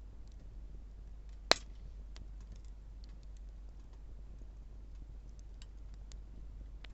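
Wood campfire crackling: scattered small crackles of burning wood, with one sharp, loud pop about a second and a half in.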